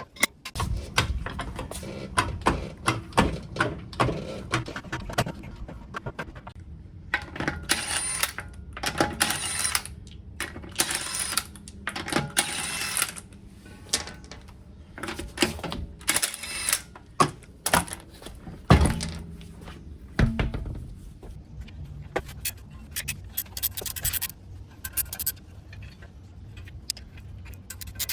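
Metal tools and parts clinking and clattering in quick, irregular knocks, with a few longer noisy stretches in between.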